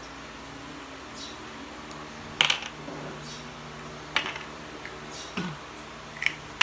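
Small plastic puto molds clicking and tapping as they are handled, brushed with oil and set down on a table: a few sharp light clicks, the loudest about two and a half seconds in.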